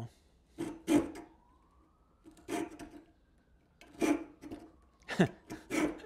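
Hand coping saw rasping across a thin wooden twig in about six short, irregular strokes. By its owner's account the saw no longer cuts well.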